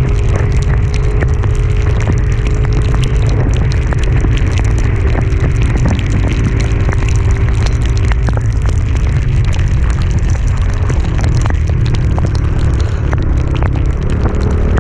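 Motorcycle riding uphill in the rain: heavy wind buffeting on the microphone over a steady engine note, with many sharp ticks of raindrops hitting the microphone. The engine note changes about two-thirds of the way through.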